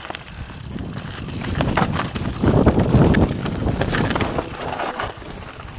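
YT Industries Capra AL Comp mountain bike descending a loose gravel and rock trail at speed: tyres running over stones with many sharp clicks and knocks from the bike, and wind on the microphone. It is loudest about halfway through.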